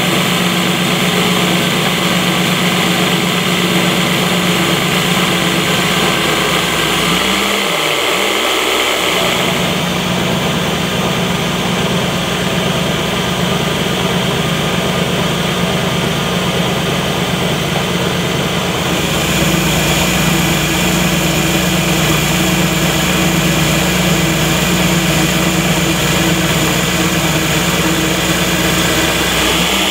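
CNC benchtop milling machine with a belt-driven spindle, its end mill cutting aluminium in a heavy roughing pass: a loud, steady machining sound with a steady low tone under it. The sound changes character about a third of the way in and again near two thirds.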